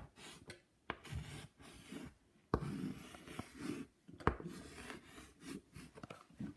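Drawing on a board: irregular scratchy strokes of a pen or marker rubbing across the surface, with a few sharp taps as the tip meets the board.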